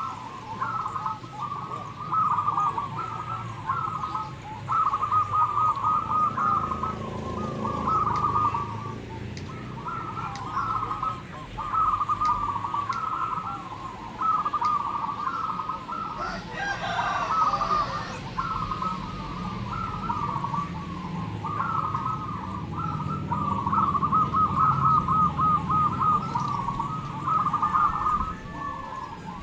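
A chorus of many zebra doves (perkutut) cooing, their rippling, trilled coo phrases overlapping and repeating without a break. A brief noise cuts across them about two-thirds of the way in.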